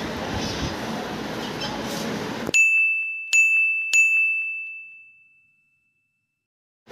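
After a couple of seconds of faint room noise, three bell-like dings on one high pitch, less than a second apart, the last ringing away. They are an edited-in sound effect over a silenced track.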